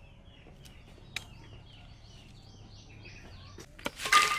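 Small birds chirping in the background, a run of short repeated calls. Near the end a loud rustling crash as a handful of cut water spinach is dropped into a glazed clay jar, with a short ringing tone on it.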